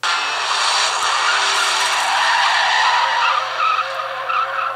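Movie soundtrack played at maximum volume through an iPhone 4's built-in speaker: car engine and skidding-tire sound effects, starting abruptly.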